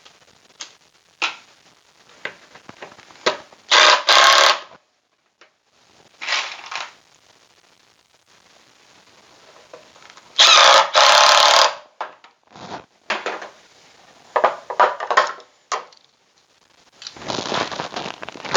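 Power drill driving screws into wood in a series of short bursts, each about a second long, with clicks and handling noises between them.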